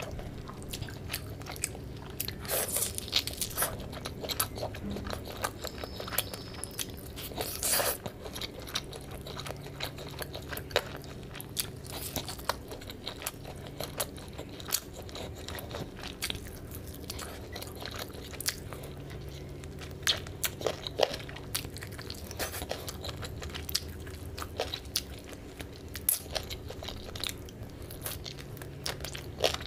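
Close-miked eating: biting and chewing pieces of chicken curry on the bone, eaten by hand, with many sharp wet mouth clicks and a few louder bites.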